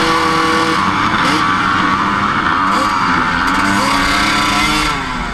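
A pack of motocross dirt bikes revving and accelerating away from the start, several engine notes rising and falling over one another. The sound eases a little near the end.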